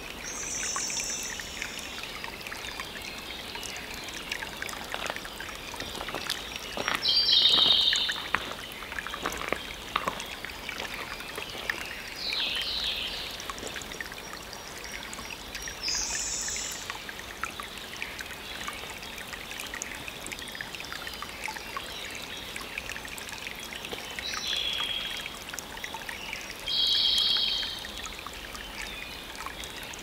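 Water trickling steadily, with wild birds giving six short, high calls; the two loudest come about seven seconds in and near the end.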